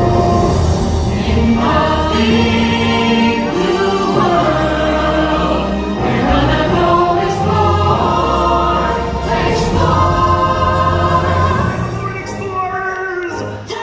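Stage-musical song: several voices singing together over a recorded backing track with a steady bass, played loud through the theatre's sound system. It eases off a little near the end.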